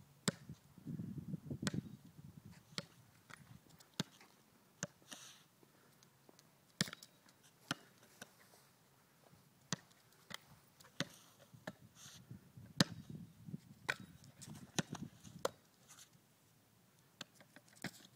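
Irregular sharp knocks and taps, some loud, from a ball being batted and bouncing as a dog plays with it. Softer scuffling comes about a second in and again in the second half.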